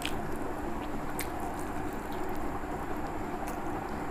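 Someone eating rice and egg by hand: fingers mashing and mixing the rice on a plate, and chewing, with a few short sharp clicks over a steady background noise.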